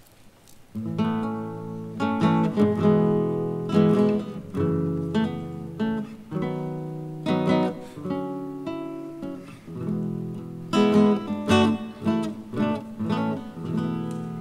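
Acoustic guitar playing a song's introduction, strummed and picked chords, starting about a second in.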